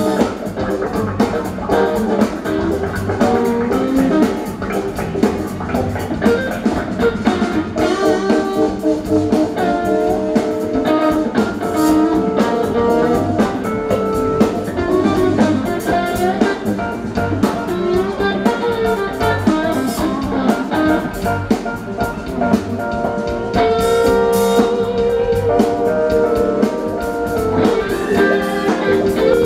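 A live rock band playing an instrumental passage, with electric guitars, bass guitar and drum kit.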